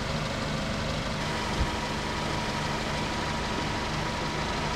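Engine of a Colorado police ute idling steadily, under an even hiss, with one short knock about a second and a half in.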